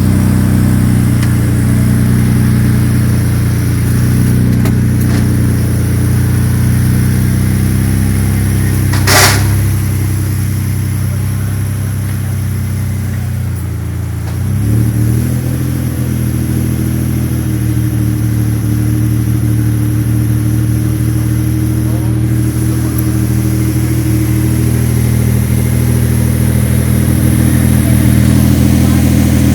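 Lamborghini Diablo V12 engine idling steadily after a start. About nine seconds in comes one short, sharp noise, and around fourteen seconds the idle dips and then picks up briefly before settling.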